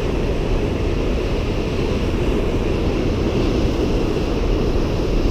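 Strong sea wind buffeting the microphone over breaking surf, a steady low rumble with no let-up.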